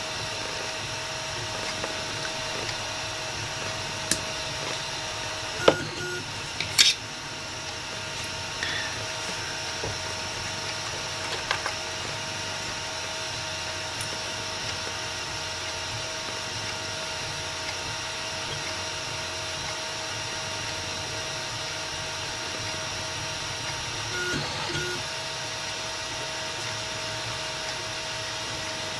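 Steady whirring hum and hiss, with a few light clicks and taps of small hand tools on the workbench, the loudest about six to seven seconds in.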